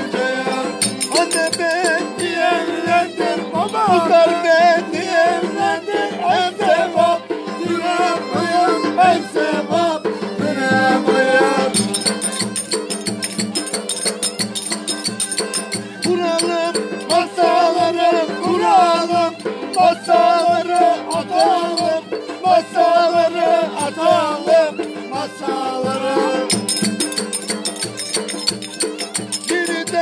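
Violin (keman) bowed in a lively Turkish folk dance tune, the ornamented melody wavering and sliding, over a steady rhythmic rattling percussion beat.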